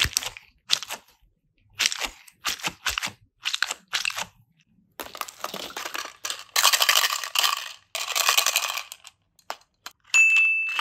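Plastic toys and plastic-wrapped clay packs being handled and rummaged through: sharp clicks and knocks, then longer crinkling of plastic wrappers, with a short steady high ding near the end.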